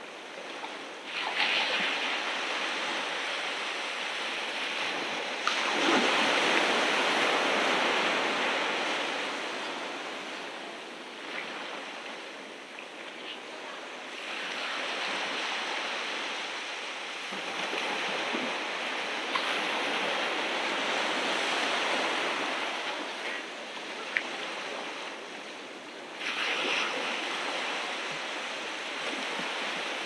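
Ocean surf on a beach: waves breaking and washing in, rising in five surges of rushing noise every several seconds, the loudest about six seconds in.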